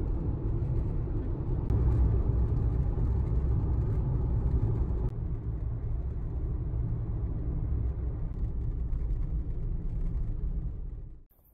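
Steady road and engine rumble inside a moving car's cabin as it drives along, cutting off suddenly near the end.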